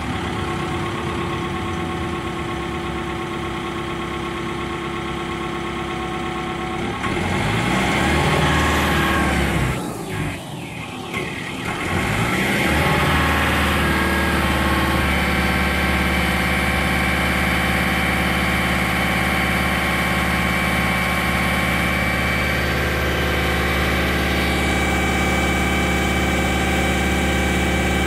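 Volvo MW500 cold planer's diesel engine running steadily, then speeding up about a quarter of the way in, its pitch dipping and rising for a few seconds before it settles into a steady, louder run at higher speed. A thin high whine joins about halfway through.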